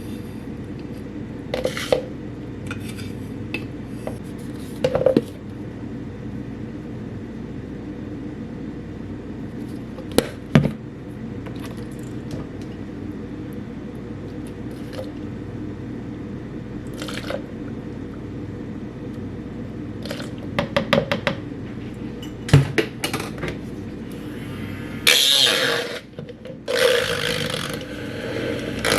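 Small clicks, knocks and scrapes of cut flowers being trimmed and set into a glass vase, over a steady low hum. A quick run of clicks comes about two-thirds of the way in, and two longer hissing rushes of noise come near the end.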